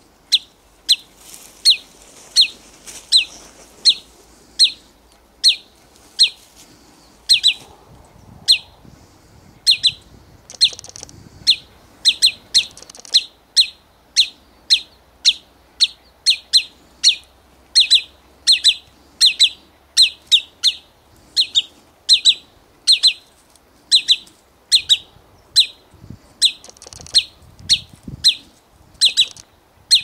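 Wood sandpiper calling: a long series of sharp, short, downward notes, about one a second at first and coming faster, nearly two a second, after about twelve seconds.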